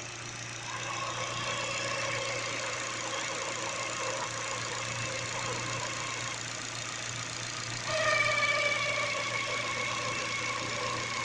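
A car engine idling, with a steady whine from its new Contitec (Continental) timing belt inside the engine. The whine grows louder about 8 seconds in. The owner blames the replacement belt, which he notes is rigid where the original Ford belt was rubbery.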